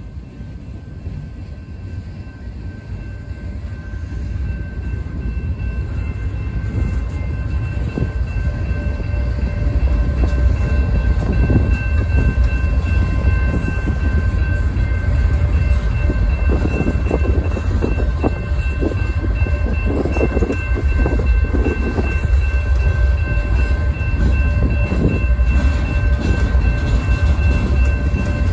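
Freight cars of a mixed freight train rolling past close by: a steady low rumble of steel wheels on rail that grows louder over the first ten seconds, with scattered clacks of wheels over rail joints and a thin, steady high ringing tone above it.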